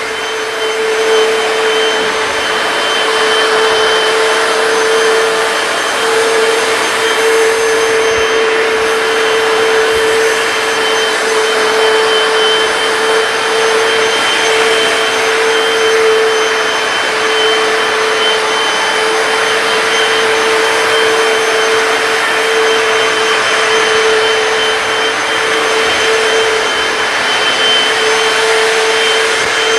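Hoover PowerDash hard floor cleaner running steadily as it cleans a hard floor: a loud, even rushing noise with a steady whine from its suction motor.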